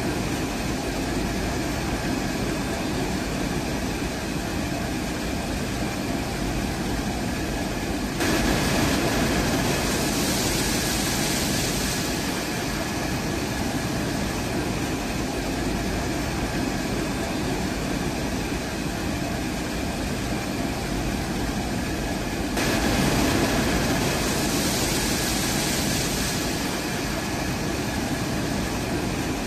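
TOLZ vibrating screen grain cleaner running: a steady mechanical hum and rattle with a faint constant whine. It grows louder with an added hiss twice, about a third of the way in and again about three-quarters through.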